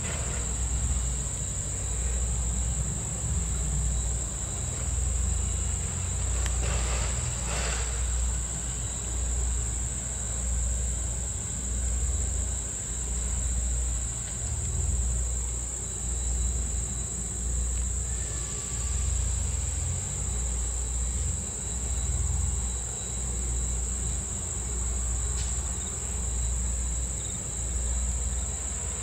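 A steady, shrill chorus of insects runs over a low, rhythmic throb, about one beat a second, from the Strasburg Rail Road steam locomotive working ahead of the train.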